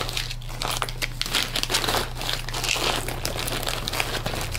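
Plastic zip-top bags inside a zippered fabric makeup pouch crinkling as the pouch is handled and squeezed, in irregular crackles, over a steady low hum.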